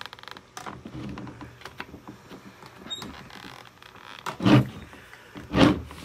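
Hoover vacuum's clear plastic dust canister handled on a hard tabletop: a few small clicks, then two louder bumps about a second apart near the end.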